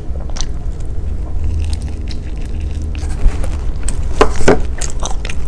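Eating whole-grain avocado toast: faint chewing sounds, then two crisp bite or crunch sounds about four seconds in as she bites the toasted bread. A low steady hum runs underneath.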